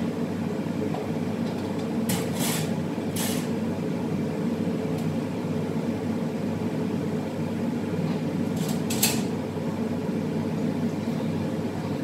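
Steady low rumbling drone from a kitchen stove area with burners lit, with a few short high hisses about two to three seconds in and again around nine seconds.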